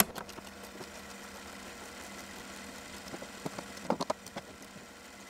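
Hand tools working on the tailgate's nuts and bolts: one sharp click, then a short run of light metallic clicks about four seconds in, over a steady low hum.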